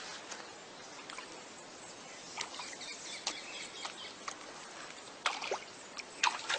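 Faint outdoor ambience at the water's edge: a low steady background with scattered short clicks and brief chirps.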